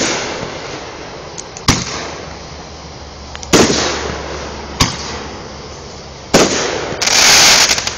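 Fireworks going off: four sharp bangs a second or two apart, each trailing off in an echoing tail, then a loud rush of noise lasting about a second near the end.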